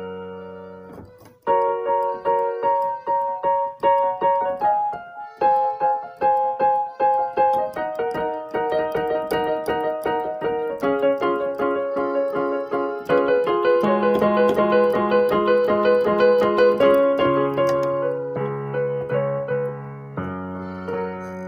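Background piano music: a melody of separate struck notes over held chords, with a brief break about a second in.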